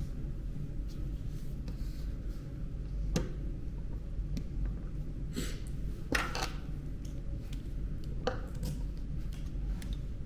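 A handful of sharp clicks and knocks, as from hands working on the parts of a hospital bed's extension-section locking mechanism, over a steady low hum.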